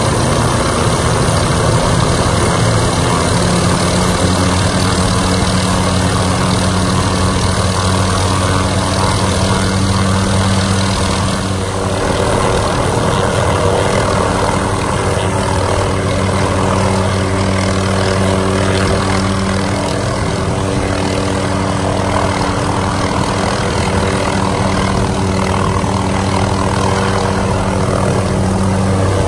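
Hughes 500D helicopter's turbine and five-blade main rotor running loud and steady as it lifts off into a hover and departs. About twelve seconds in, the pitch of the steady tones shifts and fills out as the rotor takes the load of lift-off.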